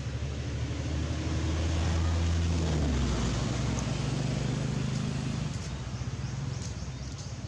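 An engine running steadily with a low hum, its pitch changing about three seconds in.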